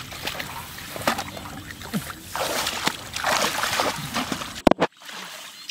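Water sloshing and splashing in irregular surges, with scattered clicks. Near the end comes a sharp crack, the loudest moment, and the sound briefly cuts out.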